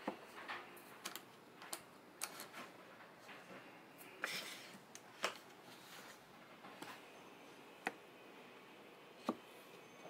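Homemade plywood vertical toggle clamp worked by hand: irregular wooden clicks and clacks as the handle is pushed and pulled and the rubber-faced pad comes down on a board. A dozen or so sharp taps, the sharpest about five seconds in and near the end.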